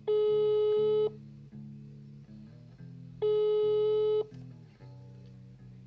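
Telephone ringback tone heard while a call is placed: two steady, buzzy one-second beeps about three seconds apart, over soft background guitar music.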